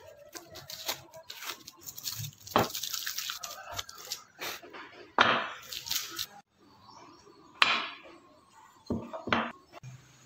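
Bandsawn wooden curved table-leg pieces being handled and set down on a board: irregular knocks and clicks of wood on wood, several of them sharp, with paper rustling for a couple of seconds near the start.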